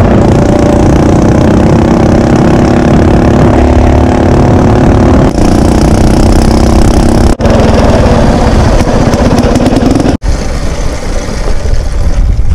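Small gasoline engine of a minibike trail bike running steadily under way, with wind on the microphone. Its pitch rises a little near the ten-second mark, then it sinks under the wind. The sound cuts out sharply three times, about 5, 7 and 10 seconds in.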